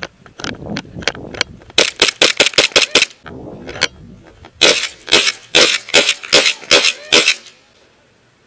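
Airsoft guns firing: quick strings of sharp cracks, roughly six to eight a second, in two bursts with a pause between them.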